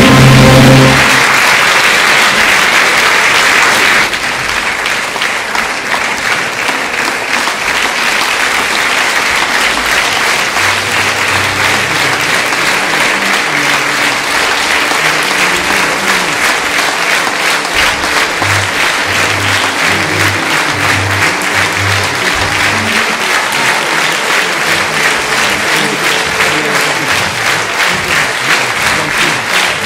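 An orchestra's final chord ends the act about a second in, and theatre audience applause follows, steady and sustained through the curtain call. Faint low musical notes sound under the clapping midway.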